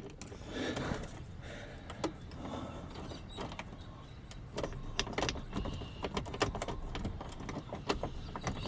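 Irregular small metallic clicks and scrapes of a dipstick pick and tension wrench being worked inside an old, worn car lock barrel with flat-key wafers, the pins not yet setting.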